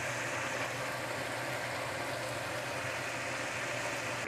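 Pot of rajma curry simmering on the stove: a steady hiss with a low hum underneath.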